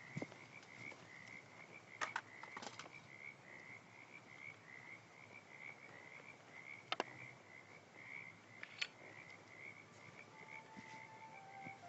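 Quiet night ambience of a single high chirp repeating about three times a second, like a cricket or tree frog, with a few sharp clicks scattered through it. Faint held music tones come in near the end.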